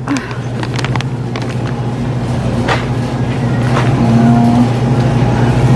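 Steady low mechanical hum of a supermarket freezer case, with a few sharp clicks.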